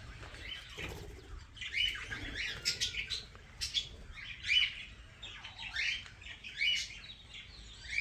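A flock of budgerigars chirping, many short, quick calls overlapping and coming in bursts.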